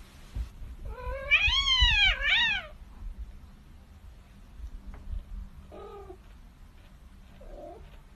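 Kitten meowing: one loud, drawn-out call that rises and falls about a second in, then two faint short meows near the end. A low rustling and rumbling of handling runs underneath.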